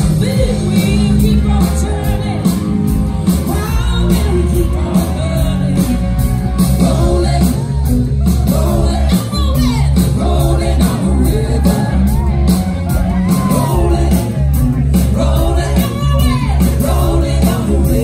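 Live rock band playing on stage, with a lead singer over electric guitar, bass and drum kit keeping a steady beat, heard from among the audience.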